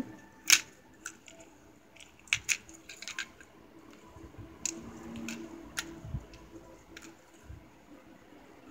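Plastic fidget spinners handled and knocked against each other while being stacked: scattered small clicks and taps, the loudest about half a second in.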